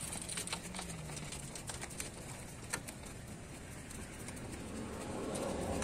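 Scissor jack being wound up by its crank handle: scattered light metallic clicks and ticks from the drive screw and the universal-joint handle as the jack rises.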